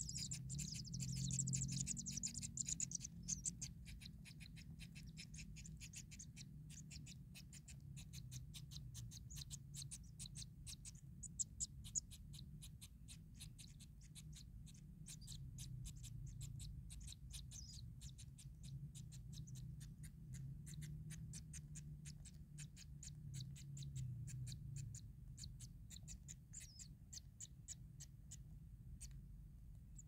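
Newly hatched kingfisher nestlings begging inside their burrow nest: a fast, faint ticking run of calls, several a second, strongest in the first few seconds. A low steady hum lies under it.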